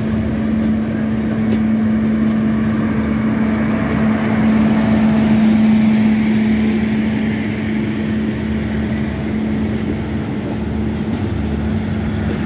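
A long passenger express train rolling slowly past, a steady low hum running under the rolling noise, loudest about halfway through.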